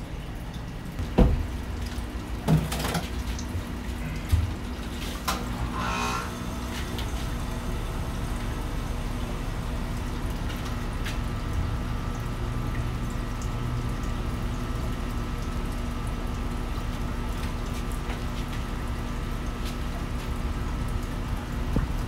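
Steady rush of water running into a glass aquarium, with a few sharp knocks in the first few seconds.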